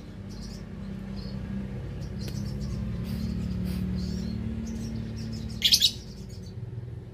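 Lovebirds chirping: scattered short, high chirps and one loud shrill burst of chirping near the end, over a steady low hum.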